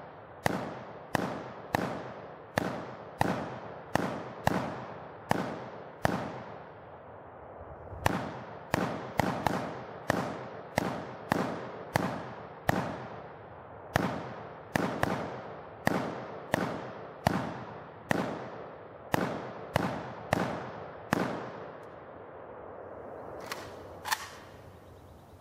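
AK-47 rifle (7.62×39 mm) fired in a long string of about thirty single semi-automatic shots, mostly one or two a second, each with a ringing tail. The shooting pauses briefly about six seconds in and again shortly before the end.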